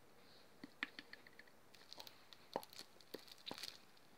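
Faint, scattered clicks and taps of fingers handling a small plastic tube with a cap.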